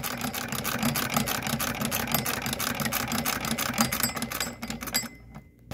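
1881 Singer Model 12 transverse-shuttle sewing machine, hand-cranked, stitching cotton: an even, quick clatter of about six stitches a second that stops about five seconds in.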